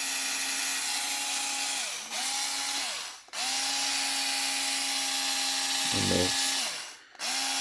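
Small 4-volt cordless screwdriver motor whirring at a steady pitch. It is released and re-triggered four times, and it winds down with a falling whine each time it is let go.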